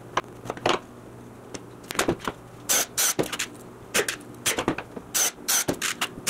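Small plywood pieces being picked up and set down on a plywood workbench: an irregular string of sharp wooden clacks and knocks.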